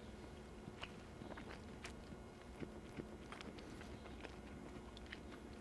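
Faint chewing of a mouthful of tender braised rabbit: soft, scattered wet mouth clicks.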